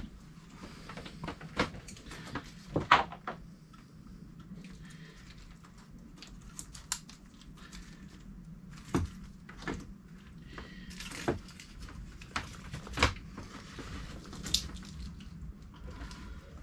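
Scattered clicks and knocks of cables and plastic connectors being handled and pushed into place behind a boat's helm console, over a faint steady low hum.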